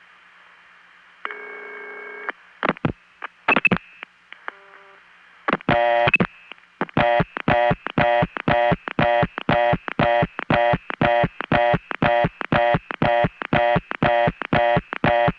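Recorded telephone line on a 1970s long-distance call routed through the Norfolk, Virginia crossbar tandem: line hiss, about a second of steady signalling tone, then clicks. From about five and a half seconds in comes a long, even train of short buzzy pulses, about two a second, which is the tandem's dial pulsing out to the Pungo step-by-step exchange, audible over the line.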